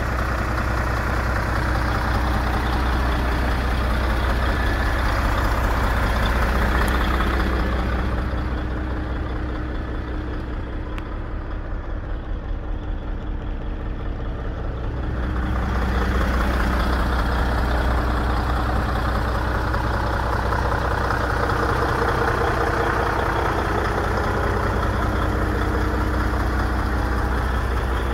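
Scania 113M 360 truck's 11-litre straight-six diesel engine idling steadily. For several seconds in the middle the engine sounds quieter and muffled, heard from inside the cab.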